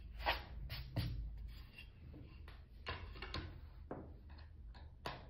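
Several short rubbing and scuffing noises of hands on a plywood craft board, the sound of supplies being shifted on the work table.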